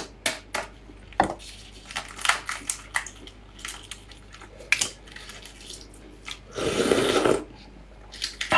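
Gloved fingers peeling the shells of spicy braised half-hatched eggs: a run of small crackling clicks and wet squishing. About seven seconds in there is a louder wet rush of noise lasting under a second.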